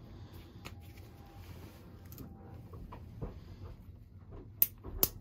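Small handling noises as gloved hands work thermostat wires and a hand tool at a boiler's zone valve wiring: faint rustling and light taps, then two sharp clicks about half a second apart near the end.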